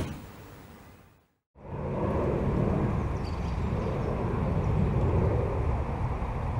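A pickup truck's door shuts with a single sharp thump. After a short break, a steady low rushing sound of wind buffeting the microphone outdoors.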